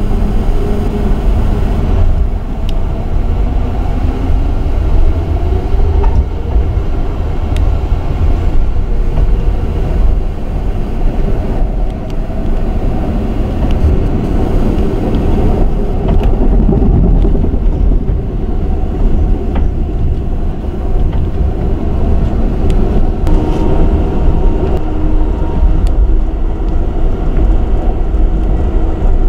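Amtrak Southwest Chief passenger train running at speed, heard from inside the car: a loud, steady low rumble and rolling noise with occasional faint clicks.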